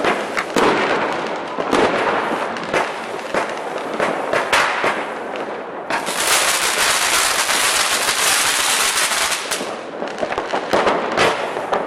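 Fireworks going off: a rapid, irregular string of firecracker bangs and pops. From about halfway, a dense crackling hiss runs for three or four seconds before single bangs return.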